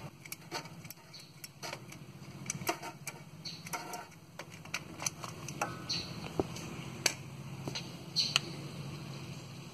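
Irregular small clicks and taps of hands and tools working at a transmission speed sensor, unclipping its plastic electrical connector and loosening its mounting bolt, over a faint steady low hum.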